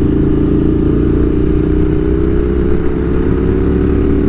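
Ducati Monster 1200 S's L-twin engine running under steady throttle at cruising speed, its note holding nearly level with a slight rise in pitch.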